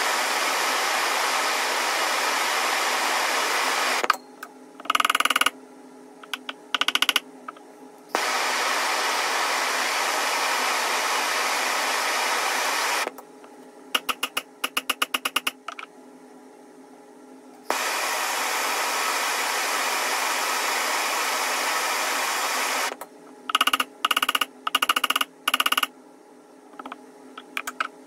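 A handheld gas torch hisses steadily while it heats a thin tool-steel rod, broken three times by bursts of hammer blows on the rod against an anvil, each blow ringing with a bright metallic tone. The middle burst is a quick run of light taps.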